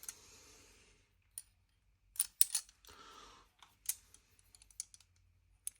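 Small metal watch case-opener tools clicking and clinking against each other as they are handled: a scatter of light, sharp clicks, several close together about two seconds in, with a soft rustle about three seconds in.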